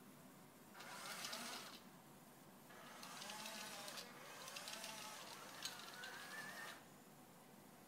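A small robot's electric drive motors whining as it drives, in two spurts, a short one and then a longer one, with a hiss from the wheels; the motor pitch wavers up and down with speed and rises near the end.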